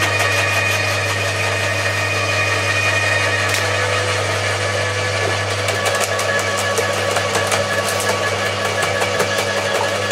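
Electric roller shredders (Bosch AXT 2300 and Atika LH 2500) running, their motors giving a steady hum with a few constant tones. From about six seconds in, irregular crackling and snapping as thuja branches are crushed between the rollers.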